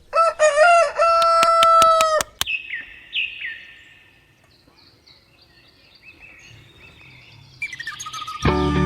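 A rooster crows once: a broken start, then a long held note. A few faint chirps follow. Music comes in near the end.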